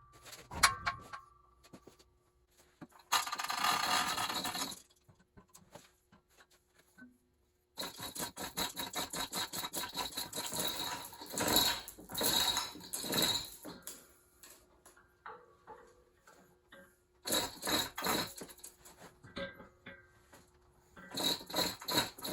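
Irregular scraping, clicking and knocking of metal parts and tools being handled during engine assembly work. The sounds come in clusters, with a steady rasping scrape for a second or two early on and a long run of dense clicks and scrapes in the middle.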